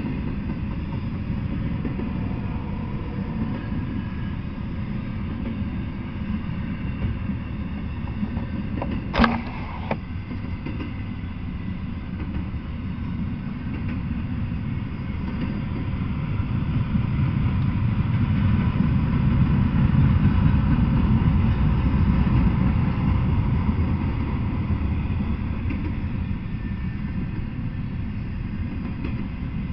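Double-stack intermodal freight train rolling past: a steady low rumble of wheels on rails that swells a little past the middle, with one sharp knock about nine seconds in.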